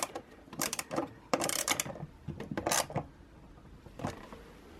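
Hand ratchet driving in a screen-mounting bolt: irregular bursts of ratchet clicking through the first three seconds, then a single click about four seconds in.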